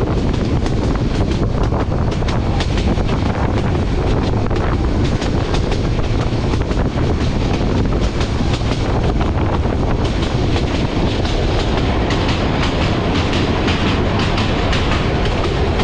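Express train of PT INKA-built passenger coaches running at speed: a steady, loud rumble of wheels on rail with many quick clicks over the rail joints.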